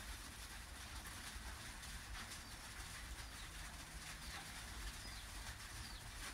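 Faint outdoor ambience with a dove cooing quietly in the background.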